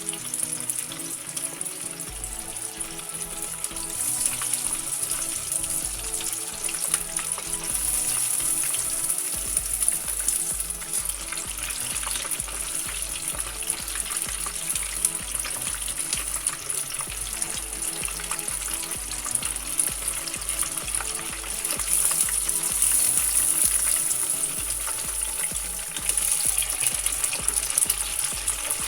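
Chicken pieces deep-frying in hot oil for karaage: a steady crackling sizzle that swells louder now and then.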